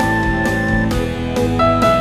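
Instrumental background music, with a new note about every half second.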